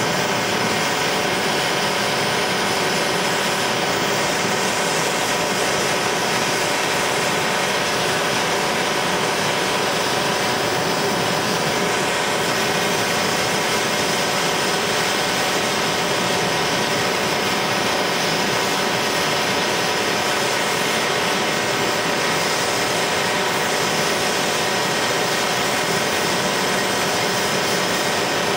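Handheld propane torch burning with a steady, even hiss, its flame held on a cast aluminum joint to heat it for soldering with aluminum rod.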